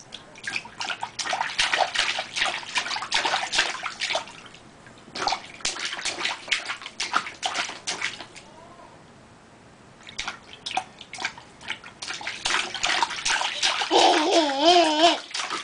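A baby slapping the water in a shallow plastic kiddie pool with her hands: runs of quick splashes and splatters, with a pause of a second or two just past the middle. Near the end a short wavering baby vocal sound rises over the splashing.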